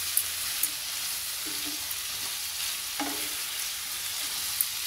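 Cauliflower florets and onion-tomato masala sizzling in oil in a kadai while a wooden spatula stirs them. The sizzle is steady, with a few sharp clicks and short scrapes of the spatula against the pan.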